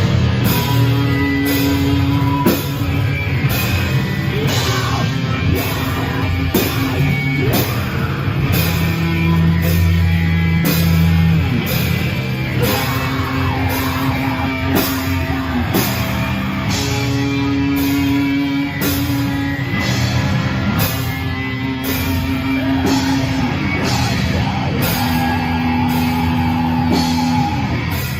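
Rock band playing live: electric guitar and drum kit, with the drums keeping a steady beat.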